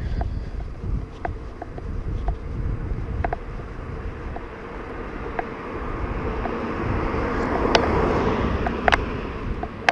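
A car drives past on the street, its sound swelling to a peak about eight seconds in and then fading, over a low rumble and light scattered clicks.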